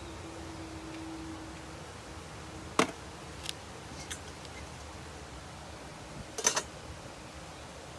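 The enamelled metal lid of a small kettle smoker is set down on its body with a short clatter about six and a half seconds in. Before that come one sharp click a little before three seconds and a few lighter ticks, over a steady hiss with a faint hum in the first two seconds.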